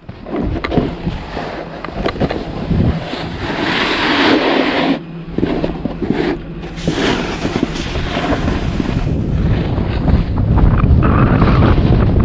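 Wind rushing over the microphone while snowboarding, mixed with the board sliding and scraping on snow, rising and falling as the rider moves.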